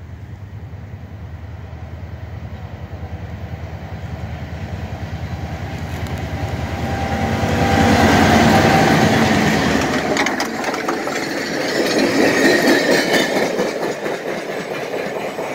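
Norfolk Southern EMD GP38-2 diesel locomotive approaching and passing, its engine's pulsing rumble growing louder to a peak about eight seconds in. Then the towed steam locomotive and caboose roll by with wheel clatter and sharp clacks on the rails.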